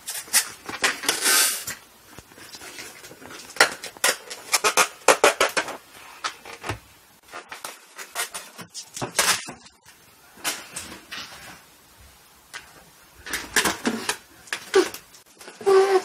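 A dog biting and dragging a long twisted latex balloon across a hard floor: irregular clusters of rubber squeaks, rubs and scrapes with short pauses between, and a short pitched squeak near the end.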